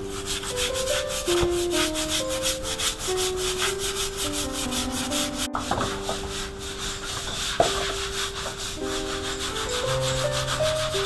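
Stiff plastic hand scrub brushes scrubbing mold off a wet, soapy concrete floor in quick, rhythmic strokes, over background music with a simple stepping melody.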